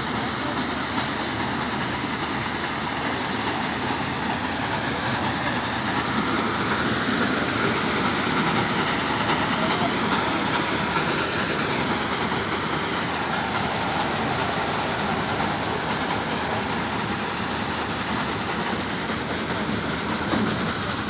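Garlic-breaking and clove-grading machine running steadily: a continuous mechanical din as garlic cloves stream out of its chutes into the bowls.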